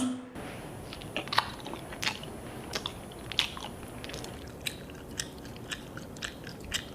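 Close-up chewing and biting: a string of small, irregular crunching clicks, two or three a second, over a faint steady background.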